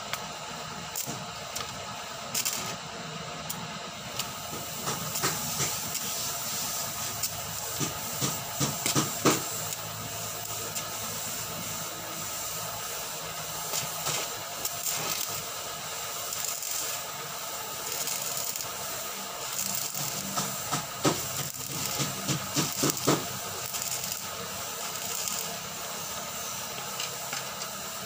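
Stick arc welding with a small inverter welder: the arc crackles and hisses steadily, starting a few seconds in, with clusters of sharp pops, and stops a few seconds before the end.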